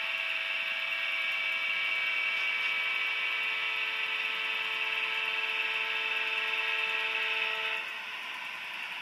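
HO scale diesel locomotive's sound-decoder horn held in one long multi-note blast as the train reaches the grade crossing, cutting off sharply about a second before the end.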